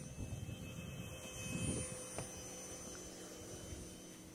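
High, steady whine of a small RC jet's 30 mm electric ducted fan, a thin tone with several higher overtones, as the model passes low. Gusts of wind rumble on the microphone, loudest in the first two seconds, and there is a single sharp click a little after two seconds in.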